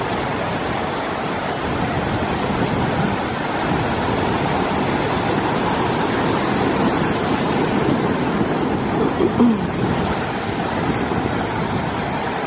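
Ocean surf breaking and washing over a rocky shoreline, a steady rush of waves.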